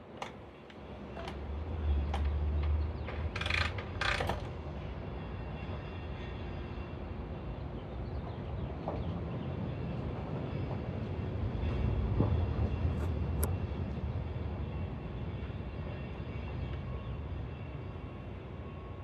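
1967 BSA Lightning 650 cc parallel-twin engine on a cold start: it catches about a second in, runs up loud for a couple of seconds, then settles into steady running, swelling again briefly around the middle.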